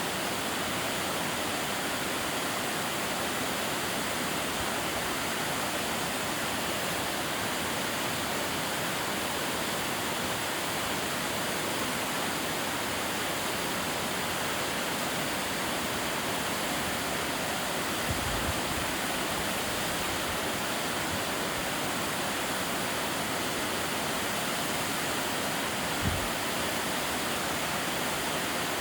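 Shirahige Falls, a waterfall of spring water spilling from a cliff face into a river, rushing steadily. Two brief low thumps, about 18 seconds in and near 26 seconds.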